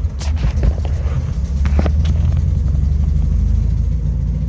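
Old Volkswagen microbus engine running steadily, with a few light clicks and knocks in the first couple of seconds.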